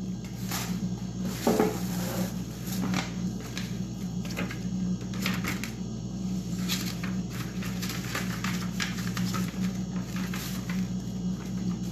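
Bubble wrap and packaging crinkling and crackling in many short clicks as hands unpack a grill from its box, over a steady low hum.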